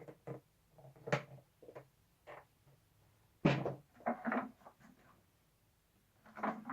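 Intermittent knocks and clunks of the Numatic George vacuum cleaner's parts being handled, with its motor switched off. The loudest clunk comes about three and a half seconds in.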